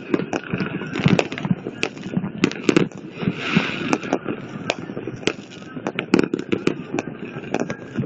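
Fireworks display going off overhead: a rapid, irregular string of sharp bangs and pops, several a second, with a brief hiss about three seconds in.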